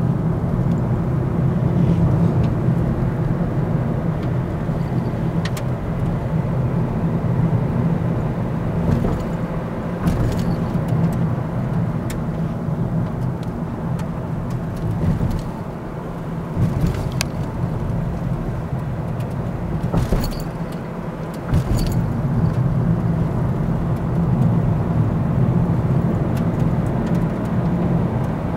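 Cabin sound of a Mazda Demio XD's 1.5-litre four-cylinder turbodiesel driving along: a steady low engine drone mixed with road noise. Scattered light clicks and rattles come from inside the car.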